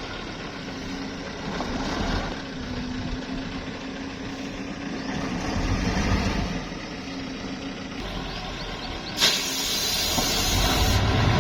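Heavy dump truck's diesel engine running with a steady hum. About nine seconds in, a sharp burst of hiss starts suddenly and cuts off about two seconds later.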